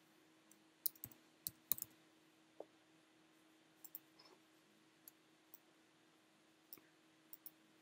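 Scattered clicks of a computer keyboard and mouse: a quick run of keystrokes about a second in, then single clicks every second or so, over a faint steady hum.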